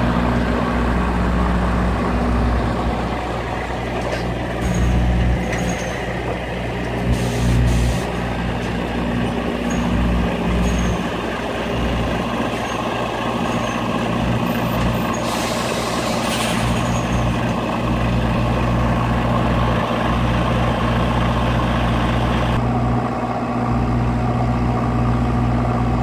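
Articulated lorry's diesel engine running steadily at low revs while it manoeuvres, with hisses of compressed air from its air brakes about seven seconds in and again around fifteen to seventeen seconds in.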